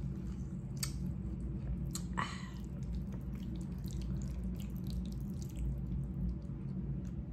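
Close-miked chewing and wet mouth sounds of someone eating spaghetti with meat sauce: many small clicks and smacks, a sharper click about a second in and a brief louder wet sound about two seconds in, over a steady low hum.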